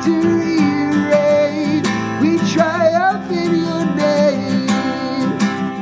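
Worship song with strummed acoustic guitar and a singer holding long notes, one with a wavering run about halfway through.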